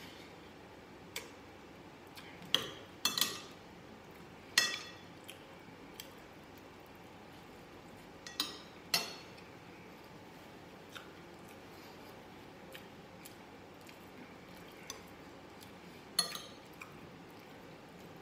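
Metal spoon and fork clinking against glass bowls and a plate while eating: scattered sharp clinks with a short ring, several in the first few seconds, a pair about halfway through, and one more near the end.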